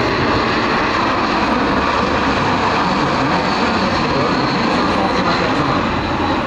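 Airbus A400M Atlas's four turboprop engines with eight-bladed propellers, running loud and steady as the aircraft passes low overhead, with a faint high whine over the drone.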